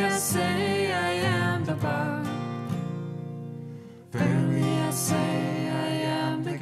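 Two acoustic guitars strumming chords under a sung melody. A strong strum lands about four seconds in, and the chords ring down in between.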